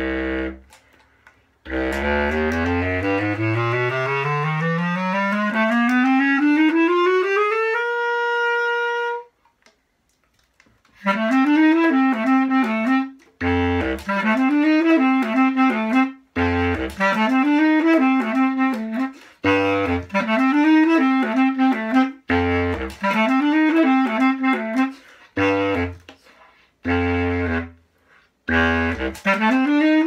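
Bundy bass clarinet with a homemade keyed PVC low D extension, played solo. It climbs a rising scale from its lowest note over about six seconds and holds the top note. After a short pause it plays a short phrase several times, each one starting on a low note and leaping upward.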